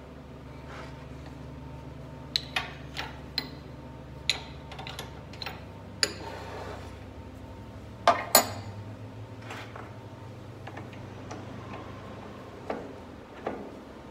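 Metal clicks and clanks of a drill chuck, chuck key and hand tools being handled on a bench lathe while the center drill in the tailstock's Jacobs chuck is swapped out, with the two sharpest clanks close together about eight seconds in. A low steady hum runs underneath.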